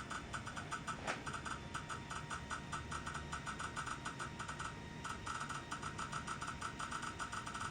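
Shining 3D intraoral scanner ticking rapidly and evenly while capturing scan data, about seven short ticks a second, with a brief pause about two-thirds through.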